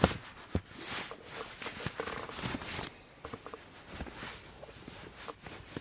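Rustling of clothes and bedding with scattered knocks and clicks as someone moves about and pulls on socks in the back of a van; a sharp knock comes at the start and another about half a second later.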